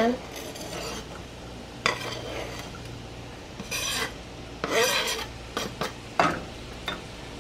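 Diced bell peppers sizzling in melted butter in a skillet, with short bursts of scraping and clatter, about four of them, as the peppers are pushed off a plastic cutting board and stirred with a spatula.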